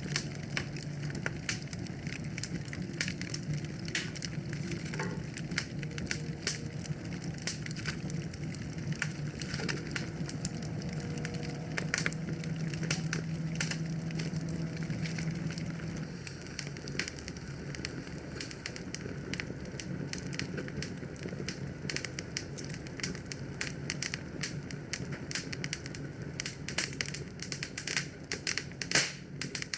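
Wood fire burning in a fireplace, crackling with many irregular sharp pops over a steady low rumble.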